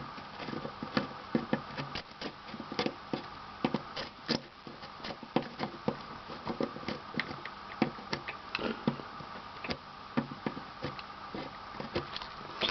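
Irregular light clicks and taps from hand-soldering a connector's pins onto a circuit board, several a second, over a steady hum.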